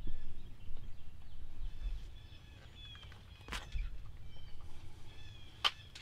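Songbirds chirping and calling, with a low rumble at the start and two sharp clicks, about three and a half and five and a half seconds in.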